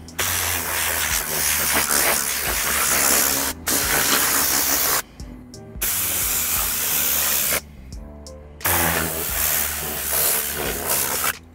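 Tornador compressed-air blowout tool blasting air over a car seat and floor carpet: a loud rushing hiss in four long bursts, breaking off briefly about three and a half seconds in and pausing about five and eight seconds in.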